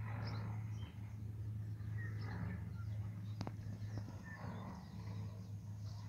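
Outdoor ambience: a steady low drone with faint, scattered bird chirps and one sharp click about three and a half seconds in.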